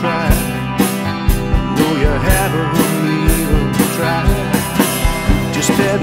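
Rock song played by a band of drums, bass and guitars, with sung vocals over a steady drum beat.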